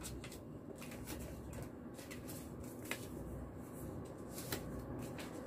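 Quiet rustling of paper red envelopes and banknotes being handled, with a few short crisp crinkles.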